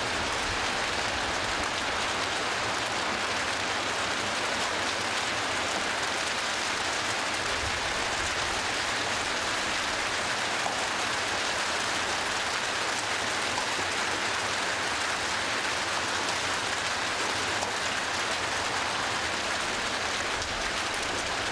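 Heavy hailstorm: large hailstones pelting a car and the road in a dense, steady clatter of countless impacts.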